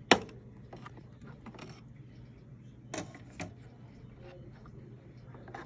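Hard plastic parts of a vacuum cleaner being handled and clicked together. There is one sharp, loud click at the start, then two lighter knocks close together about three seconds in, over a faint steady hum.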